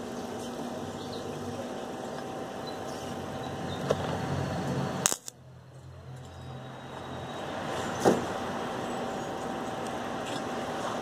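Wire-feed (MIG) welder arc running on stainless steel tubing, a steady hiss. It cuts off with a click about five seconds in and builds back up over the next couple of seconds.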